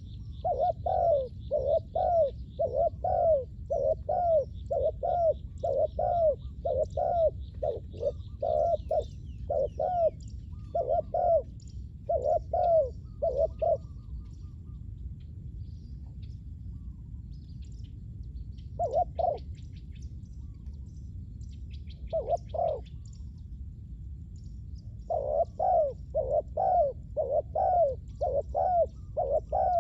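Spotted doves cooing in runs of quick repeated coo notes, about two a second. A pause about halfway through is broken by two single coos before the cooing picks up again near the end. Small birds chirp faintly behind.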